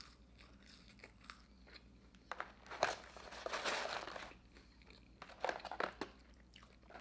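Crinkling and rustling of a McDonald's paperboard fries carton as fries are pulled out of it. It is loudest for about two seconds in the middle, with a few lighter rustles and clicks after that.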